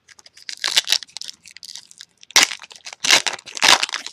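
Foil trading-card pack wrapper crinkling and tearing as it is opened, in a run of sharp crackles with several loud rips in the second half.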